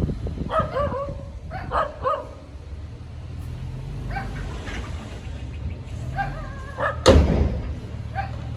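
Heavy earthmoving machinery's diesel engine running with a steady low hum, overlaid by several clusters of short high-pitched yelps. A loud thud comes about seven seconds in.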